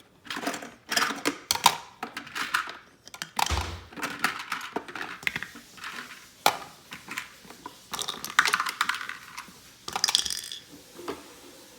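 Small plastic toys clicking and clattering irregularly as they are handled and set down, with one dull thump about three and a half seconds in.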